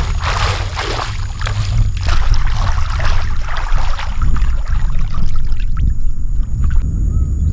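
Water splashing and sloshing in uneven washes for the first few seconds, then thinning out, over a steady low rumble.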